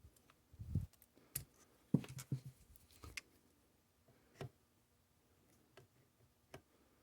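Scattered small clicks and taps of pliers working at a steel E-clip on the firearm hinge pin, a few faint knocks spread out with quiet between, the strongest cluster about two seconds in.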